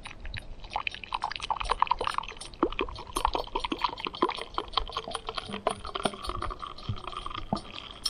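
Coffee pouring from a camping kettle into a mug, gurgling and glugging in a quick, uneven run of blubs.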